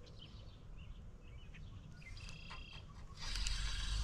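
Faint bird chirps, then about three seconds in a spinning fishing reel is cranked right at the microphone, a louder steady whir that drowns them out.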